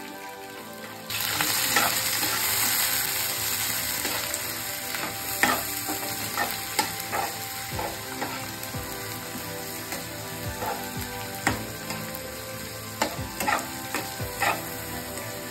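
Sliced onions sizzling in hot oil in a non-stick kadai. The sizzle starts suddenly about a second in and eases off slowly, while a spatula scrapes and taps against the pan as the onions are stirred. The onions are being fried brown for beresta.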